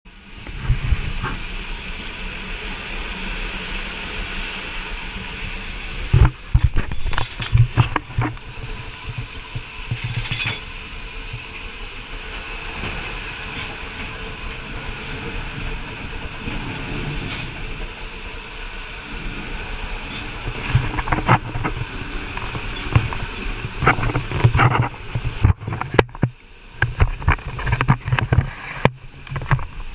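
Steam hissing steadily in a steam locomotive's cab, from the boiler and its backhead fittings. Metal clanks and knocks break in a few times, a cluster of them about six to eight seconds in and more often over the last ten seconds.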